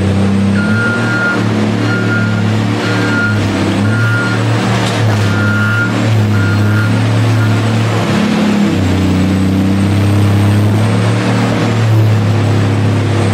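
Elphinstone R1600G underground loader's diesel engine running, with its reversing alarm beeping about once a second through the first half, then stopping. The engine eases off briefly just past the middle and picks up again.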